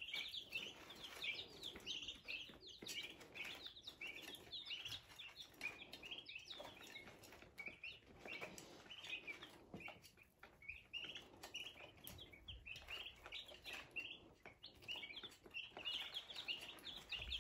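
A brooder full of five-day-old chicks peeping: many short, high peeps overlapping, several a second, in a faint, steady chorus.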